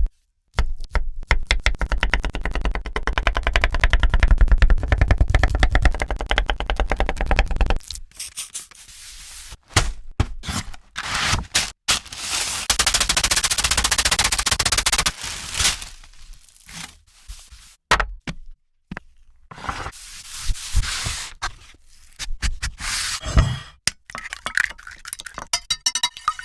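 Street-food cooking sounds in short cut-together clips: a long run of rapid, fast-repeating knocks or scrapes, then a steady hiss for a few seconds, then scattered clicks and scrapes.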